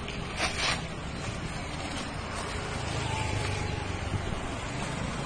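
Newspaper paper being torn and crumpled by hand, a short crackling rustle about half a second in, over steady low street rumble that swells in the middle.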